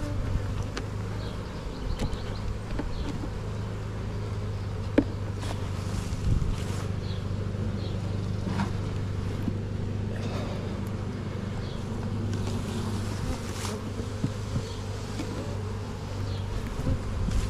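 Honeybees buzzing around an opened hive: a steady, many-voiced hum, with a few sharp clicks and brief rustles over it.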